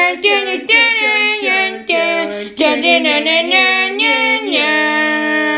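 A high voice singing a short unaccompanied tune in quick gliding notes, ending on a long held note about four and a half seconds in.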